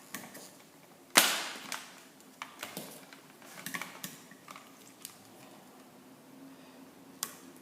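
Scattered sharp clicks and light taps from a voltage tester's probes and an old push-button wall switch being handled at the terminals. The loudest click comes a little over a second in, with smaller ones spread across the rest.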